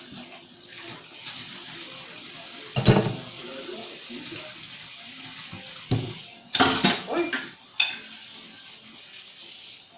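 Dishes being washed by hand in a stainless steel sink: water splashing under the dish brush, with plates and cutlery clattering. There is one loud knock about three seconds in and a quick run of clatters from about six to eight seconds.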